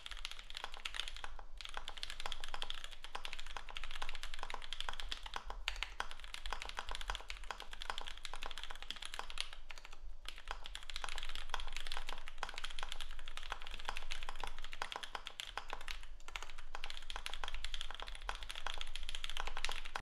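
Fast typing on a Basketweave Arisu split-layout mechanical keyboard with an FR4 plate, lubed and filmed SP-Star Dark Magic Girl switches and GMK keycaps: a dense, steady stream of key clacks. It breaks off briefly about a second and a half in, near ten seconds and around sixteen seconds.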